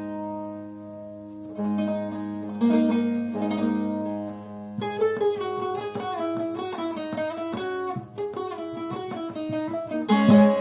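Long-necked bağlama (saz) played solo in a free improvisation. A struck chord rings and fades over the open drone strings, followed by a couple of single strokes. From about halfway a quick run of picked notes plays over the drone, and a loud strum comes near the end.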